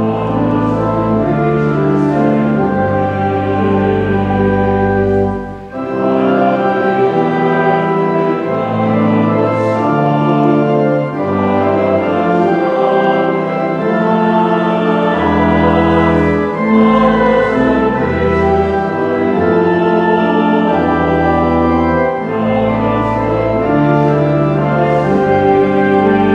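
Church organ playing a hymn in held, sustained chords over a moving bass line.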